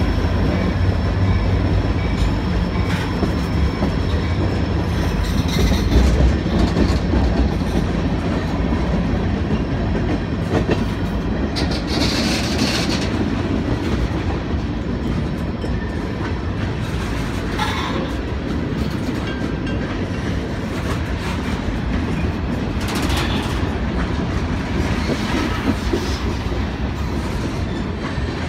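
Freight train of tank cars rolling past at close range: a steady rumble of wheels on rail with a clickety-clack over the joints, and a few brief higher-pitched screeches, the strongest about twelve seconds in.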